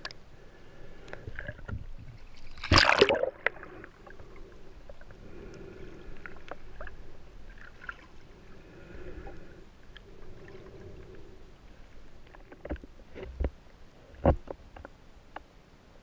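Muffled water noise heard through an underwater camera housing, rising and falling in slow swells. There is a louder rush about three seconds in and a few sharp knocks near the end.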